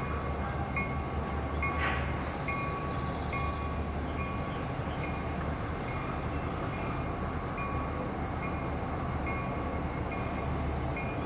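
Level-crossing signal bell ringing steadily about twice a second, over the low rumble of CN freight diesel locomotives passing the crossing.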